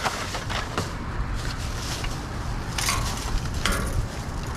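Hands rummaging through a box of scrap wire and plastic: rustling and light clattering, with short louder scrapes about three seconds and nearly four seconds in, over a steady low background rumble.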